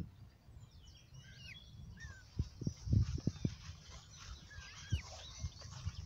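Small birds chirping and calling in the background, under a steady low rumble. A quick run of dull low thumps, the loudest sounds, comes about halfway through, and a few more scattered thumps follow later.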